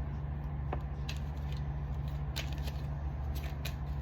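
Faint scattered clicks and rustles of small paper scripture cards being handled, over a steady low hum.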